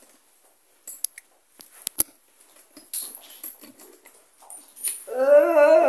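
Scattered small clicks and knocks of a phone being handled and turned around, with one sharp click about two seconds in. About five seconds in, a loud drawn-out voice-like tone with a slight waver begins.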